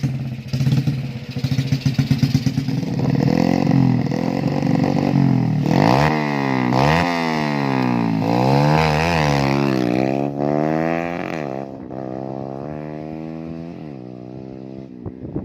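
Motorcycle engine running steadily, then revved up and down several times from about six seconds in, its pitch rising and falling. It settles lower and quieter near the end.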